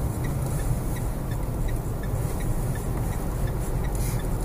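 Steady engine and tyre noise inside the cabin of a moving diesel car at road speed.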